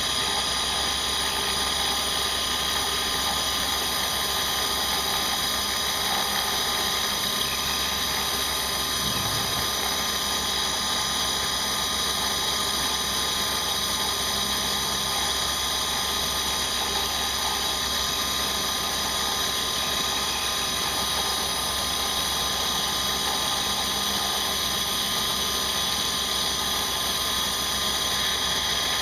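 CNC milling machine running steadily, its spindle giving a high whine of several steady tones.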